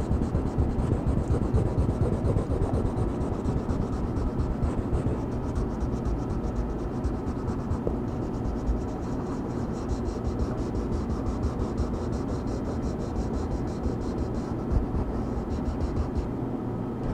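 Close-up scratching of coloring strokes on paper in a coloring book, rubbing back and forth in rapid, even strokes.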